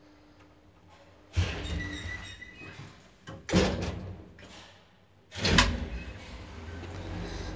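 1976 Valmet-Schlieren traction elevator: the doors close with a thud about a second and a half in and a louder bang about three and a half seconds in. Near the end a loud clunk is followed by a steady low hum as the car starts to travel.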